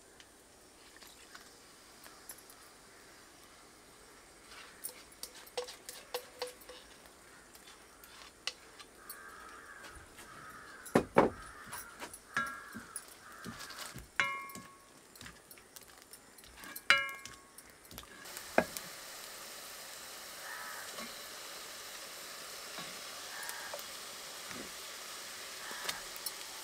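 Cooking in an iron kadai over a wood fire: clicks and knocks of a metal spatula against the pan, with a few short ringing clinks in the middle. About two-thirds of the way in a steady sizzle of frying in hot oil starts and carries on.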